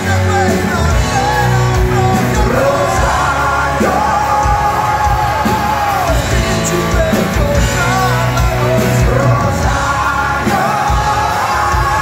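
Live rock band playing with singing: electric guitar and drums under a sung melody, heard from within the crowd.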